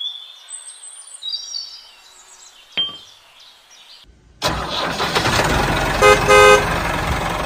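Tractor engine starts abruptly about four and a half seconds in and keeps running, with two short horn honks about a second later. Before it, faint bird chirps and a single click.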